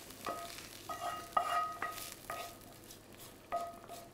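Wooden spoon knocking and scraping against metal cookware as mushrooms are scraped from a frying pan into a pot, about seven knocks, each ringing briefly at a clear pitch, the loudest about a second and a half in.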